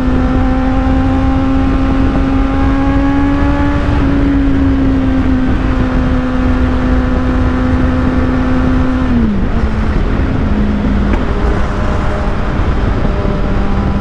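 Kawasaki Z800's inline-four engine through an Akrapovic exhaust, running hard at high revs as the bike cruises at speed, with wind rumble on the microphone. The engine note climbs a little over the first few seconds, holds steady, then drops quickly to a lower pitch about nine seconds in.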